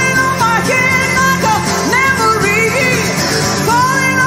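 Pop-rock song: a woman's lead vocal sung over acoustic guitar and band accompaniment, her sung phrases bending in pitch over steady held chords.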